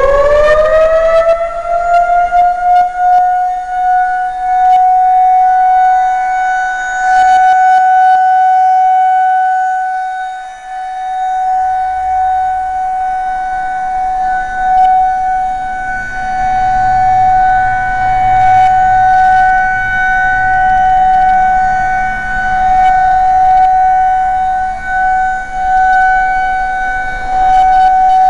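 Outdoor tornado warning siren sounding its steady test tone: it finishes winding up to full pitch in the first second or two, then holds one loud pitch. Its loudness swells and fades as the rotating siren head sweeps past.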